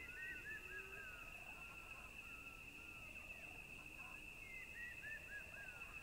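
Faint nature ambience: a steady, high insect trill with a bird singing a short phrase of quick chirps twice, at the start and again about four and a half seconds in.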